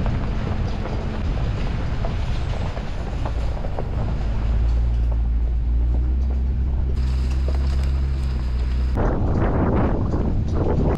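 Jeep engine running steadily at low speed as the vehicle crawls along a rocky dirt trail, with a burst of rough rustling noise about nine seconds in.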